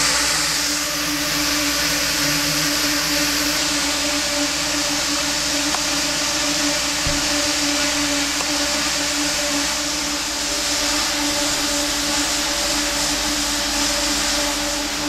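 Penguin rotary atomizer with a 12-inch basket and air assist running at speed: a steady machine whir with a constant mid-pitched tone under a loud, even airy hiss.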